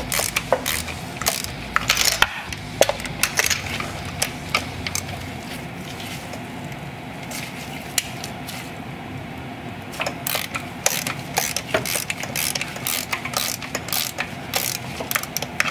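Hand ratchet on an extension and spark plug socket clicking in quick runs as it is swung back and forth to break the spark plugs free in a Gen 2 Coyote 5.0 V8. The clicking is thinner for a few seconds in the middle.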